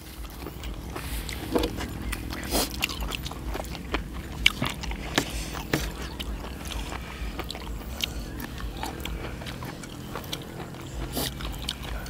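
Close-miked chewing and mouth noises of people eating a spicy glass-noodle seafood salad, with scattered crisp crunches and clicks.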